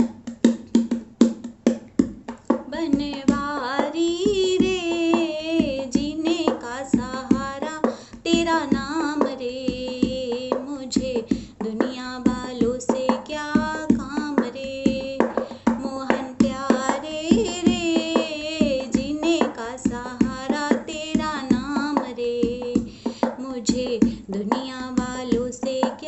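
A woman singing a Hindi devotional bhajan to Krishna without accompaniment other than her own steady beat of hand percussion. The sharp strikes start right away and the singing comes in about three seconds in.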